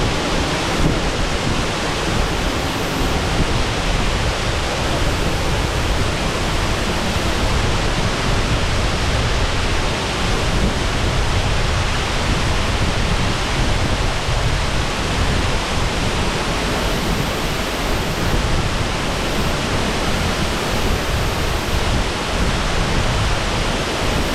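Shasui Falls waterfall: water falling in a loud, steady, unbroken rush.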